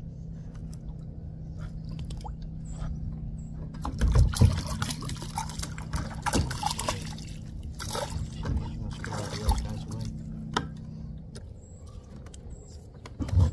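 Water splashing and sloshing in irregular bursts, loudest about four seconds in and dying away near the end, over a steady low hum that stops shortly before the end.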